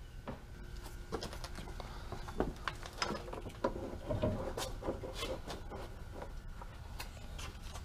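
Irregular small metallic clicks and taps of a hand tool turning and seating bolts on an outboard motor's lower unit.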